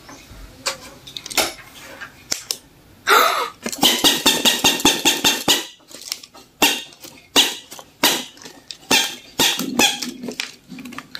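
Hard plastic light stick handled close to the microphone: a run of sharp clicks and rattles, fastest and loudest a few seconds in at about four a second, then scattered clicks.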